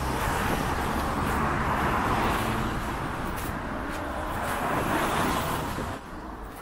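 Road traffic on a wet street: a van passing close by, then a car, their tyres hissing on the wet road over a low engine rumble. The noise swells and fades as they go by and drops away about six seconds in.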